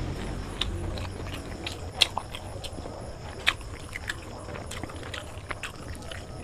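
Eating sounds of biryani eaten by hand: scattered small, irregular wet clicks and smacks from chewing and from fingers working the rice on a plate.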